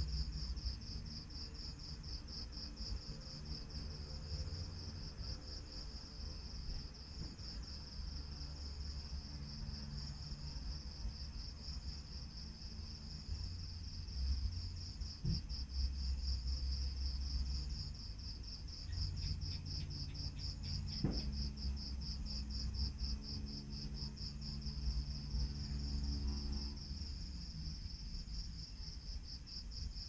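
Crickets chirping in a steady, evenly pulsing high trill, over a low rumble from farther away. There are two faint knocks midway through.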